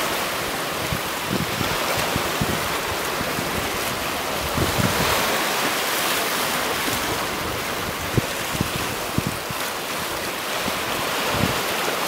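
Small waves lapping and splashing around boulders on a rocky shore, a steady wash of surf with occasional low thumps.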